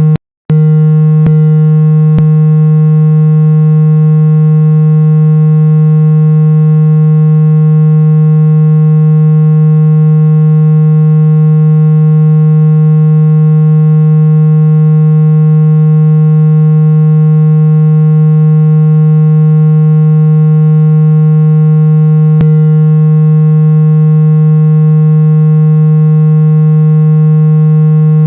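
A loud, steady, synthesized low buzzing tone with many overtones, held unchanged throughout. It cuts out for a moment right after the start, with a few faint clicks.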